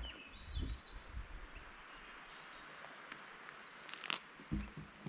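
Quiet outdoor ambience: a steady faint hiss with a few faint bird chirps in the first second, and scattered soft knocks and thumps, most of them near the end.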